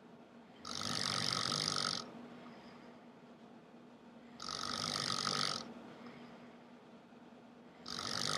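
A man snoring heavily in his sleep: three loud snores, each a little over a second long, coming about every three and a half seconds.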